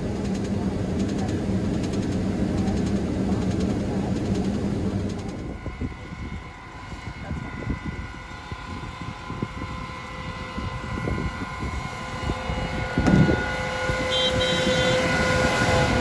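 New Holland combine running as heard from inside its cab while it unloads corn into a grain cart, a steady drone. About five seconds in, the sound drops to a quieter, uneven rumble. A steady hum then builds toward the end as a combine drives close past, with a single thump a few seconds before the end.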